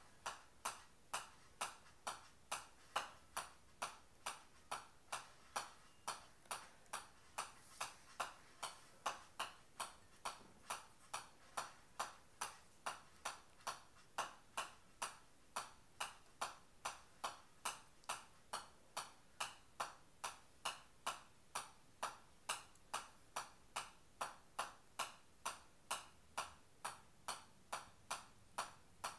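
Golf ball bounced continuously on the face of a pitching wedge, a sharp metallic click on each hit at a steady rate of about two and a half a second.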